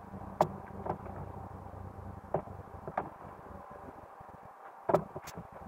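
Irregular knocks of fallen apples being dropped into a plastic crate, about six in all, the loudest a little before the end.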